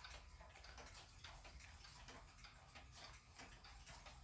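Faint, steady tick-tock of a pendulum wall clock's escapement, the Sessions time-only regulator running with its replacement pendulum.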